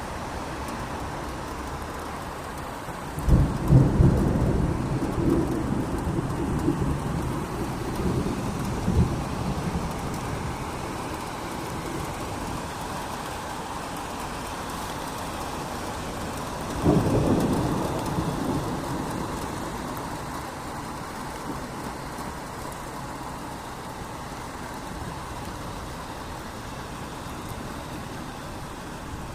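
Steady rain falling on a city street, with two rolls of thunder: a loud one starting about three seconds in that rumbles on for several seconds, and a shorter one past the middle.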